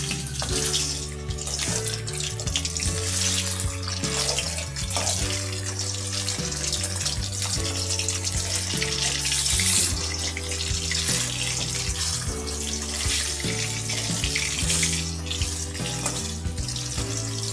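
Rohu fish pieces sizzling steadily as they fry in hot mustard oil in a steel kadai, with background music and a stepping bass line playing over it.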